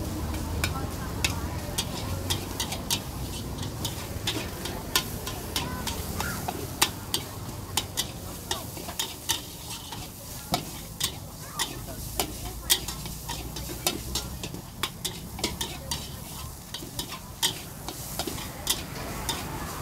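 Metal wok ladle clanking and scraping against a large steel wok as fried rice is stir-fried, the rice sizzling, with sharp irregular clinks several times a second over a steady low rumble.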